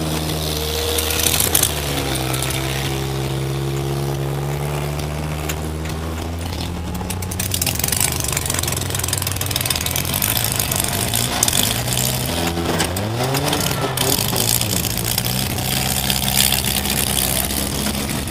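Demolition derby car's engine running, heard from inside the cab, its pitch shifting with the throttle and rising sharply about two-thirds of the way through. The sound turns harsher and noisier in the second half.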